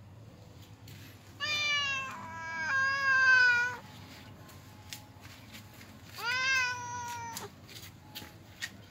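Hungry tortoiseshell cats meowing: two long, drawn-out meows, the first about two seconds long beginning a second and a half in, the second shorter, about six seconds in.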